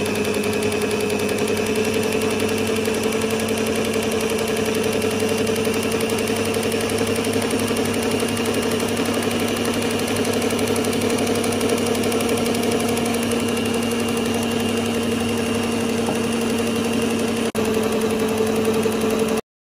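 Electric mixer running steadily at one speed, its twin beaters whisking thick chocolate cake batter; the motor hum is even in pitch and stops abruptly at the end.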